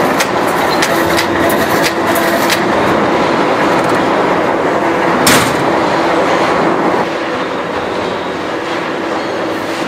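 Rotary slitting machine for tinplate running, its disc-cutter rollers turning with a steady mechanical clatter and a low hum, and scattered clicks of metal sheet, one sharper click about five seconds in.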